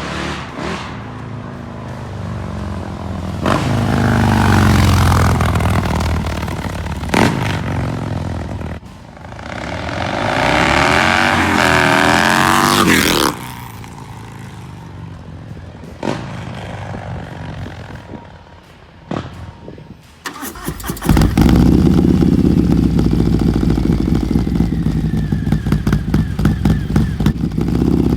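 2020 Harley-Davidson Low Rider S's Milwaukee-Eight 114 V-twin breathing through an S&S SuperStreet 2-1 exhaust with the dB killer removed, revving and pulling away in a few short clips, its pitch rising and falling. About three quarters of the way through it switches to a loud, steady idle with a fast pulsing beat.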